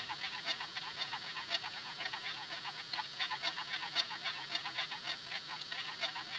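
Spoon stirring a thick milky sauce in a small saucepan, scraping and clicking against the pan's base and sides in quick repeated strokes, about four or five a second.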